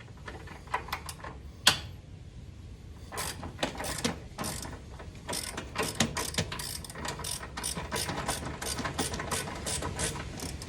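Socket ratchet clicking as a 10 mm bolt holding the air box is worked loose: a few separate clicks, then quick runs of clicks from about three seconds in.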